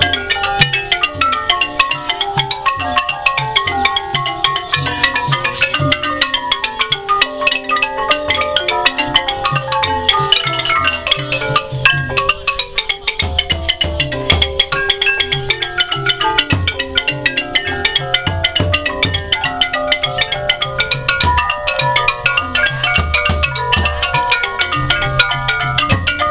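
Khmer pinpeat ensemble playing: roneat xylophones in rapid mallet runs and the kong vong gong circle ringing, with a recurring low beat underneath.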